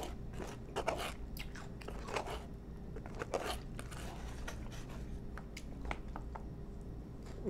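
Close-up chewing of crisp lettuce salad: irregular crunches and mouth sounds, with light clicks of a plastic fork picking at a takeout container.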